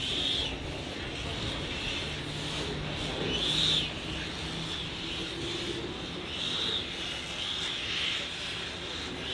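Birds calling in short, scattered calls over a steady background rush of noise.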